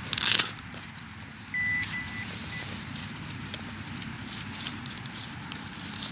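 Metal detecting pinpointer giving a short steady high beep about one and a half seconds in, briefly broken, as it is probed in a dig hole. Around it, frozen soil and straw stubble crackle and rustle, with a loud rustle near the start.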